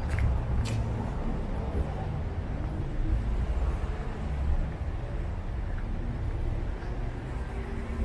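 City street ambience: a steady low rumble of road traffic, with a few faint clicks near the start.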